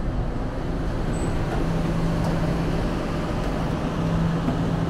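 Subway train and platform noise: a steady rumble, with a low steady hum that comes in about one and a half seconds in.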